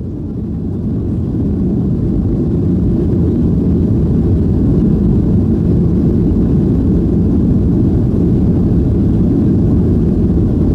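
Jet airliner cabin noise heard from a window seat over the wing: the engines run with a steady low rumble while the plane is on the ground. It swells over the first couple of seconds, then holds level.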